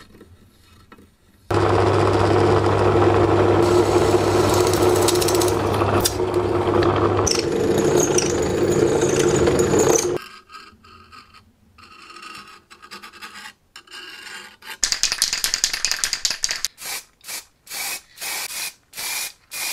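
A drill press runs with its twist bit cutting into the steel saw blade for about eight seconds, a high squeal coming in during the last few seconds of drilling. Near the end comes a quick series of short rubbing strokes.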